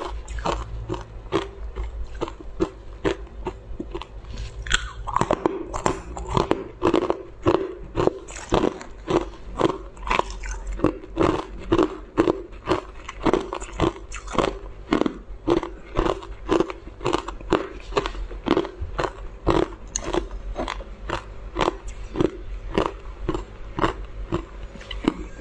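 Close-miked crunching of thin sheets of tinted ice being bitten and chewed, a sharp crunch about twice a second.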